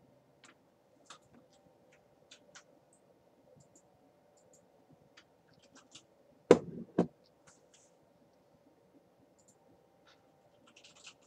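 Faint scattered clicks and small scratches of handling at a computer desk over a low steady hum, with a sharp double knock about six and a half seconds in.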